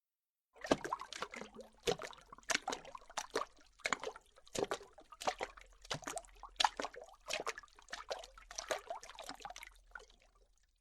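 Footsteps at a steady walking pace, about three steps every two seconds, each step with a gritty scuffing texture. They start about half a second in and fade out near the end.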